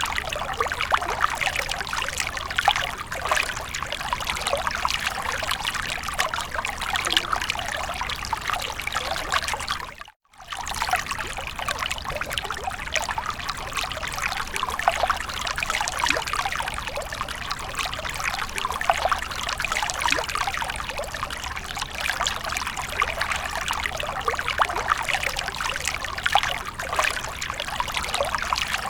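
Water fountain splashing and trickling steadily. It drops out for a split second about ten seconds in.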